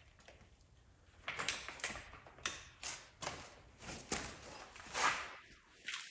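Hammer striking a punch to drive out a rust-seized chassis bolt: a run of sharp metallic blows, roughly two a second, starting about a second in.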